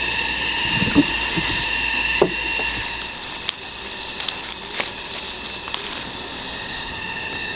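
Plum branches and leaves rustling, with scattered small snaps and clicks, as ripe plums are picked by hand. Under it runs a steady drone of several high held tones.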